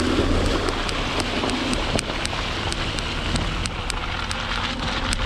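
Porsche Cayenne 4.5 S V8 running at low revs as its 35-inch mud tyres churn through muddy water, a steady splashing, hissing noise over a low engine rumble. Light clicks repeat about three times a second throughout.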